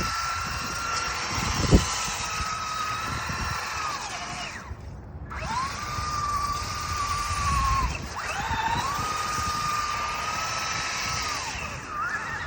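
Electric RC car motor whining as the car drives through snow: a steady high whine in three spells, each dying away as the throttle drops and rising again as it picks back up, over a constant hiss of tyres in snow. A sharp thump comes just under two seconds in.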